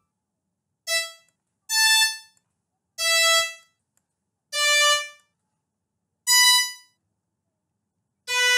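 Single notes of FL Studio's synthesized violin preset sounding one at a time as notes are clicked into the piano roll. There are six short notes at different pitches, each about half a second long, with short silences between.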